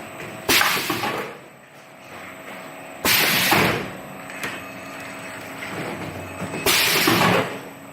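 Tongda four-line automatic cup sealer running, with a steady machine noise. Three sudden loud bursts come about every two and a half to three and a half seconds, each under a second long, one for each cycle of the machine.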